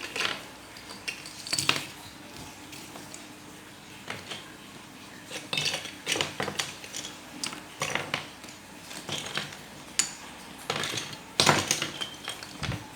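Hard plastic marble-run track pieces clicking and clattering against each other as they are handled and fitted together: irregular sharp clicks scattered throughout, with a louder clatter about eleven seconds in.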